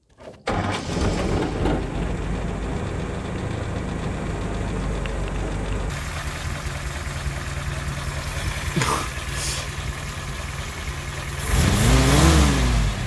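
Willys jeep's new four-cylinder flathead engine, running on a Joe's Motor Pool carburettor at its factory settings. It starts about half a second in and idles steadily. Near the end it is revved once, the pitch rising and falling back.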